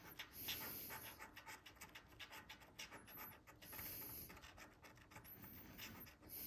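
A coin scraping the silver coating off a scratch-off lottery ticket: faint, quick scratching in many short strokes.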